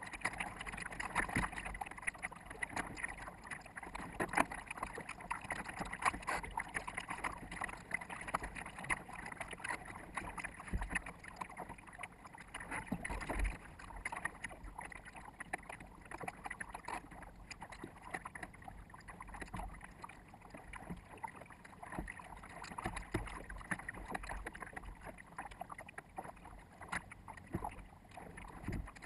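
Water splashing against the bow of a sailboat under way, with wind on the microphone: an irregular run of small splashes and crackles over a steady hiss, sped up to four times normal speed.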